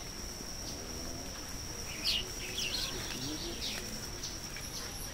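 Small birds chirping: a few short, sharp chirps about two seconds in and a couple more over the next second and a half, over a steady thin high-pitched tone.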